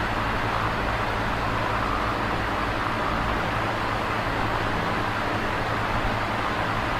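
Large box fan running steadily: an even rush of air with a low, steady hum beneath it.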